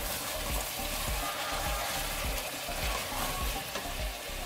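Mutton pieces sizzling as they fry with red chilli and turmeric powder in a steel pan, stirred with a wooden spatula that knocks and scrapes irregularly: the bhuna stage of dry-frying the meat in its spices.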